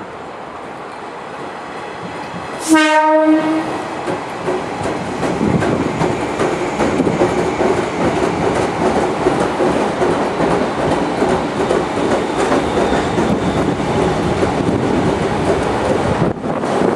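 JR 201 series electric train sounding one short horn blast, then rolling past slowly with a steady rumble and wheel clatter over the rail joints. It is held to low speed by a strong-wind restriction.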